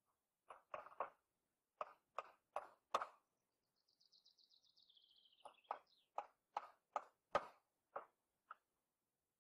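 Hammer driving nails into wooden boards: two runs of sharp, even blows, about two or three a second, with a pause of about two seconds between them.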